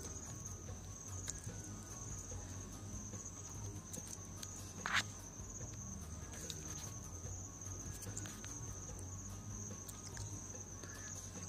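Faint background: a steady high-pitched insect chirring, like crickets, over a low hum, with one brief sharper sound about five seconds in.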